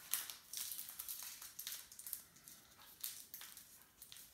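Baking-paper (parchment) piping cone being folded shut at the top by hand: faint, irregular crinkling and rustling of the paper.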